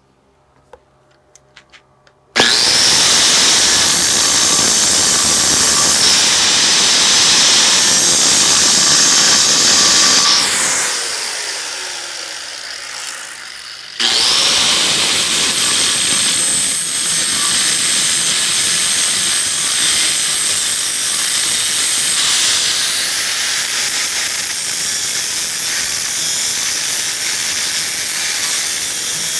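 Angle grinder grinding down the weld tacks on a steel pipe: it starts up about two seconds in, winds down with a falling pitch around ten seconds in, then is back at full speed grinding from about fourteen seconds in.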